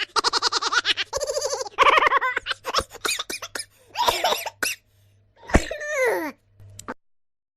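A string of short comic voice sound effects: quick pulsing laughter, then short cough-like bursts and clicks, then a cry whose pitch slides steeply downward.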